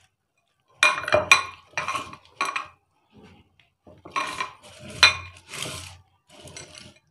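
Glass plate clinking and scraping as fingers mix a wet spice paste on it: a run of short knocks and scrapes with a ringing glassy tone, in two bunches, about a second in and again about four seconds in.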